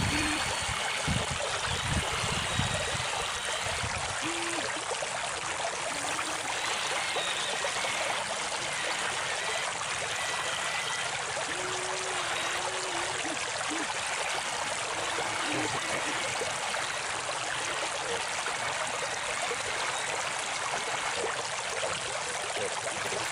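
River water flowing steadily with a constant rush and trickle, with a few low knocks in the first couple of seconds.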